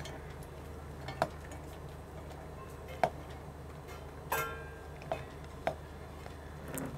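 Chopped onion being pushed by hand into a steel mixer-grinder jar: a few scattered light taps and clicks, with a short metallic ring from the jar about four seconds in.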